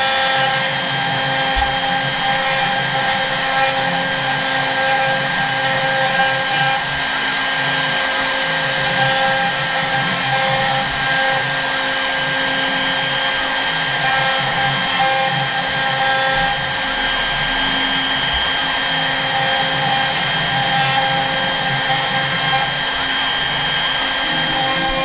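CNC router spindle running steadily, a small bit routing an inlay pocket into end-grain hard maple: an even whine of several high tones over the hiss of cutting.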